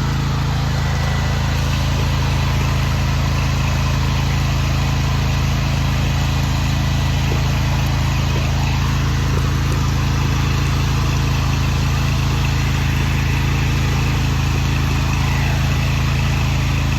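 Pressure washer's gas engine running steadily, a constant drone.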